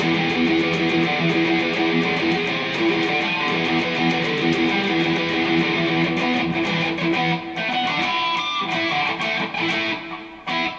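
Telecaster electric guitar played through a Marshall amp, running through a simple repeated riff of picked notes that thins out near the end.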